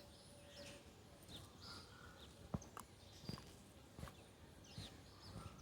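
Faint, scattered chirps of small birds, with a few sharp knocks between about two and a half and four seconds in.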